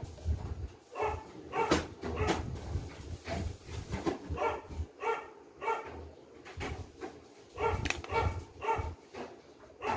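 A dog barking over and over, in short barks that come about once or twice a second.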